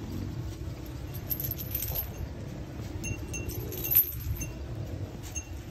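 Light metallic jingling and clinking, with short high rings here and there and a sharper clink about four seconds in, over a low rumble of movement.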